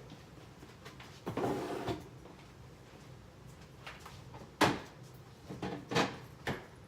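Things being moved about in a refrigerator: a short sliding rustle about a second in, then a few sharp knocks of items, a drawer or a door, the first of them the loudest.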